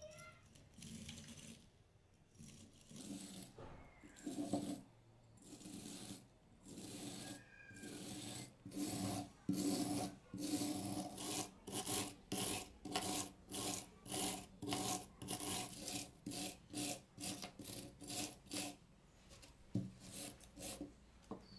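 Steel wire brush scrubbing rust off a small rusty anvil, in back-and-forth scraping strokes. The strokes are slow and uneven at first, become quick and even at about two a second for the middle part, then slow again near the end.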